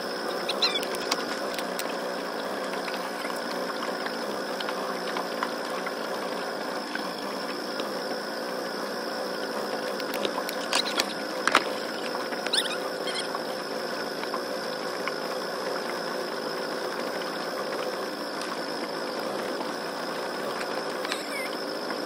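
Small boat motor running steadily, a buzzing drone with a thin high whine that sounds like a fly. A few light clicks come about ten to twelve seconds in.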